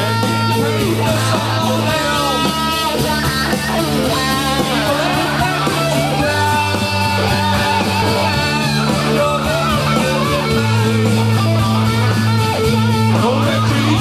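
Live rock band playing: guitar over a bass line that changes note every few seconds, with a singer.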